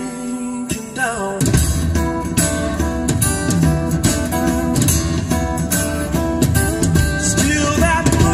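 Live band music with guitar, drums and a male singer, played through a car's upgraded audio system of Focal Utopia M speakers driven by an Audison Forza amplifier, heard in the cabin.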